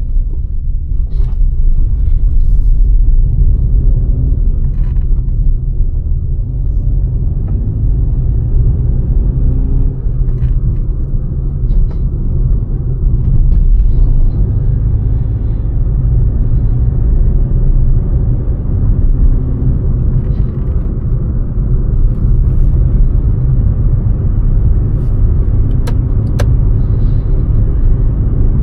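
Steady low rumble of a Maruti Suzuki Fronx being driven, heard inside the cabin: road and engine noise, with a few faint short clicks scattered through it.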